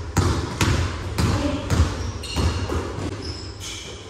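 Basketball bouncing on a gym floor as it is dribbled, about two bounces a second, with short high sneaker squeaks in the second half.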